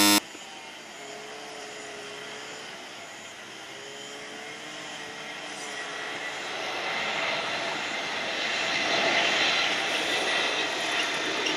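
Airbus A320neo with Pratt & Whitney PW1100G geared turbofan engines approaching to land. The engines' rushing jet noise grows steadily louder as the airliner nears, with faint wavering tones, and almost none of the harsh metallic whine of older engines. A brief loud burst sounds right at the start.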